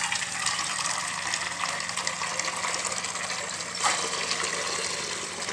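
Water running steadily from a tap into a dog's water bowl, with one brief knock or splash about four seconds in.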